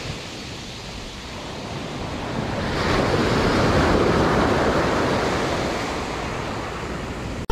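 Surf breaking on the shore: a wave surges up about two and a half seconds in, is loudest around the middle, then washes back, with wind buffeting the microphone.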